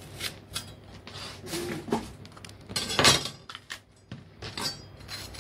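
A knife cutting into a raw green bell pepper held in the hand: a few crisp snaps and crunches, the loudest about three seconds in.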